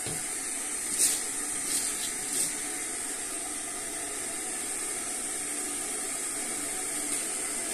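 Steady hiss, with a few short rustles about one to two and a half seconds in.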